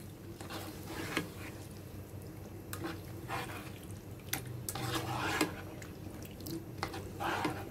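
Silicone spatula stirring raw chicken pieces through a wet, oily masala gravy in a nonstick pan: irregular squelching and sloshing, with a few sharp clicks of the spatula against the pan.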